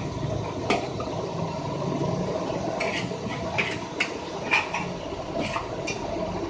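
Irregular sharp metal clinks and scrapes over a steady hiss: a spatula working fried rice in a wok.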